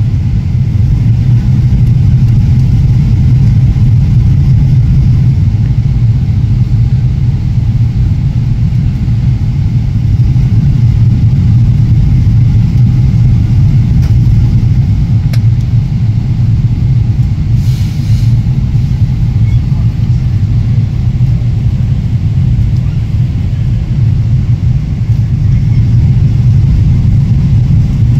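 Boeing 777 cabin noise heard at a window seat during the descent: a loud, steady low rumble of engines and airflow, with a faint brief hiss about two-thirds of the way in.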